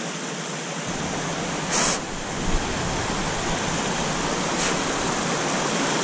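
Steady rush of a small mountain creek tumbling over rocks in a cascade, with a deeper rumble joining about a second in. A brief hiss comes just before two seconds.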